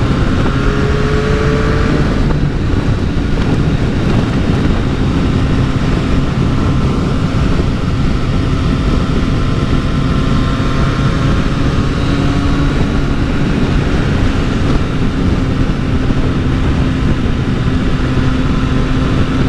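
Triumph motorcycle engine running at a steady cruising speed, with wind rush over the rider's helmet. The engine note holds steady with only slight changes in pitch.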